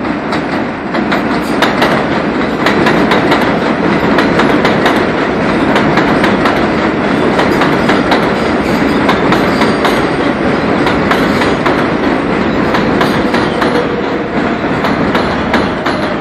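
R188 subway train rolling past on elevated steel track as it pulls into the station: a loud, steady rumble of wheels with rapid clicking over the rail joints. A faint whine comes in near the end.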